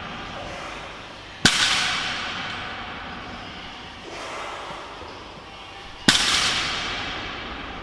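Barbell loaded with 100 kg of iron plates set down on a wooden deadlift platform twice, about four and a half seconds apart. Each touchdown is a sharp bang that rings and echoes away over about two seconds.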